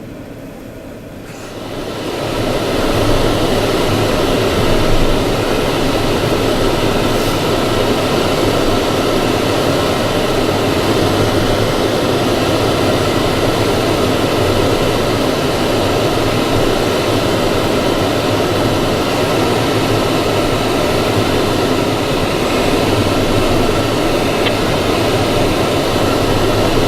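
Blizzard wind blowing hard and steadily across the microphone, rising about two seconds in and then holding loud.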